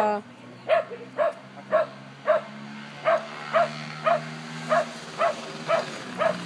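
Samoyed puppy giving short, evenly spaced yips, about two a second, about a dozen in all, while excitedly digging at a ball in a hole.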